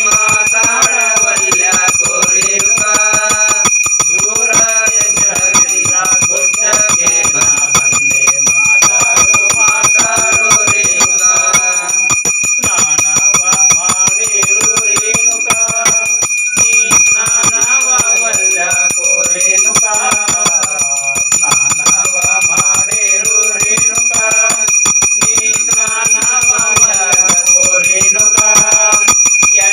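Hand bell of a Hindu puja rung rapidly and without pause, its high ringing tones held throughout, over devotional singing.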